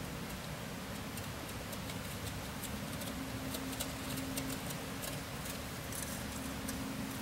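Outdoor night ambience: a steady hiss with scattered faint ticks and clicks, and a faint low hum that comes in about three seconds in.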